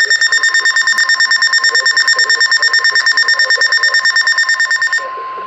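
Weather radio receiver's alert alarm beeping rapidly, about ten beeps a second, over the steady 1050 Hz NOAA Weather Radio warning alarm tone. This is the sign of an incoming warning, here a winter storm warning. The beeping stops about five seconds in, leaving the steady tone.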